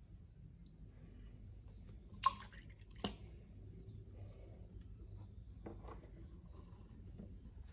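Water dripping and splashing around a small battery-powered aquarium vacuum pump in a shallow tub: two sharp drips about two and three seconds in, over a faint steady low hum.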